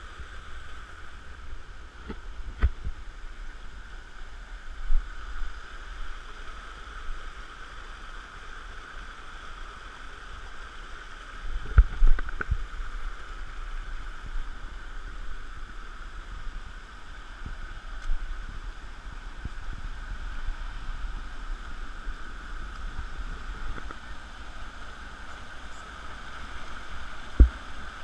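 Steady rush of flowing water, with a low rumble underneath and a few sharp knocks, the loudest about halfway through and near the end.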